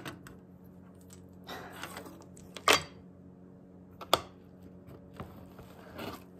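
Hands handling small items in a cardboard box on a hard floor: a few sharp plastic clicks and knocks, the loudest a little before the middle and another about a second and a half later, with soft rustling of plastic wrapping between them, over a faint steady hum.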